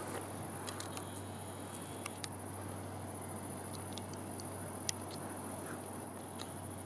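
Crickets chirring as a steady high-pitched hiss over a low steady hum, with scattered faint ticks and one sharper tick about five seconds in.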